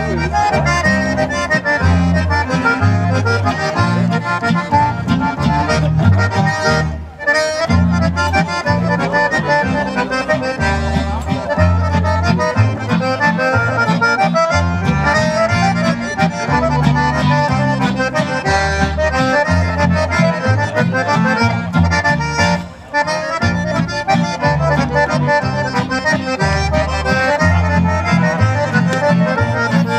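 Live band music led by two accordions, with acoustic guitar strumming and an upright double bass keeping a steady beat underneath. The music breaks off briefly twice, about seven seconds in and again near 23 seconds.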